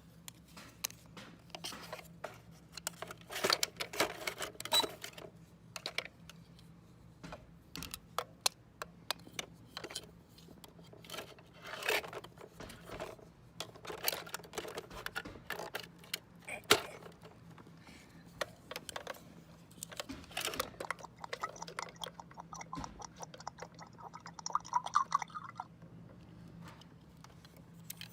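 Small plastic toys being handled and set down on a toy playset: scattered clicks, taps and light knocks, with a longer scratchy rattling stretch about three-quarters of the way through.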